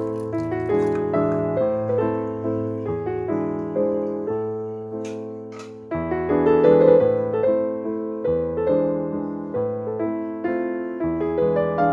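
Background piano music, a steady run of notes that each ring and fade, with a couple of faint clicks about five seconds in.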